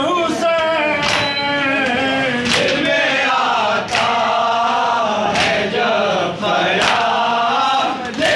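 Men chanting a noha, a Shia lament for Muharram, while the crowd beats their chests in unison. The matam slaps fall together in a steady rhythm, one sharp slap about every second and a half.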